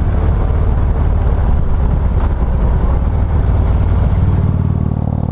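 2015 Harley-Davidson Street Glide Special's Twin Cam 103 V-twin engine running steadily as the motorcycle cruises along the road.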